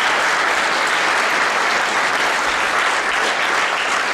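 Audience applauding steadily, a dense clapping that holds at an even level.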